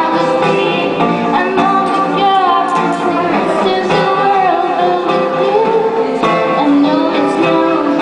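A young woman singing a song while strumming an acoustic guitar, her voice gliding through a sung melody over steady chords.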